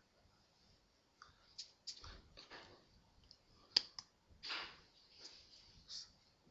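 Quiet, scattered soft clicks and slaps of a signer's hands striking and brushing against each other, with short puffs of breath and mouth noise. One sharp click a little past the middle is the loudest, followed by a longer puff.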